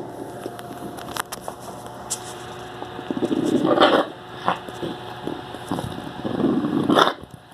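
Golden retriever coughing in two hacking fits, one about three seconds in and one near the end, each building up over about a second and breaking off abruptly.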